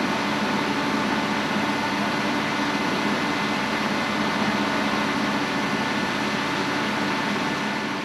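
Positive-pressure ventilation fan running steadily outside a building: an even rushing drone with a steady hum underneath.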